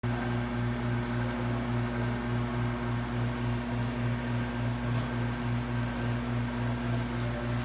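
Steady mechanical hum with a low throb that pulses about four times a second.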